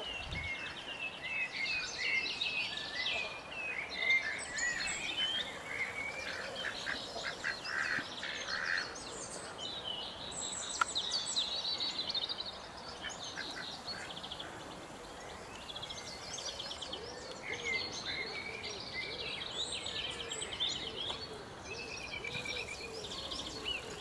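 Eurasian siskins twittering and singing, a continuous run of chirps, short sweeps and fast trills.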